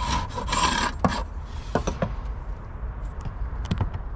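Scraping strokes on a timber beehive roof: a long rasping stroke in the first second and a shorter one just before two seconds in, followed by a few light knocks and clicks.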